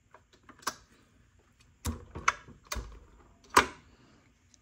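A handful of separate sharp clicks and knocks from hand handling, about five in four seconds, the loudest near the end.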